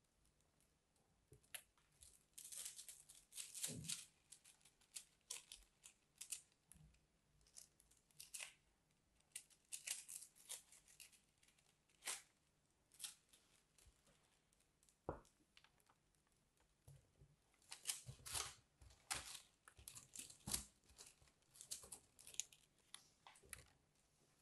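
Plastic spring toy's coils clicking and crackling against each other as hands squeeze and flex the spring, in quiet irregular clusters of short sharp clicks.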